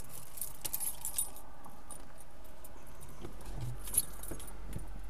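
Light clicking and jingling inside a stopped car's cabin, over a low steady hum; a few small clicks in the first second and one sharper click about four seconds in.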